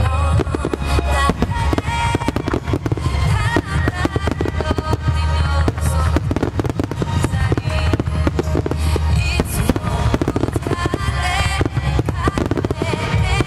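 Finale barrage of fireworks: a rapid, unbroken run of shell bursts and crackle with a deep rumble underneath, heard over music.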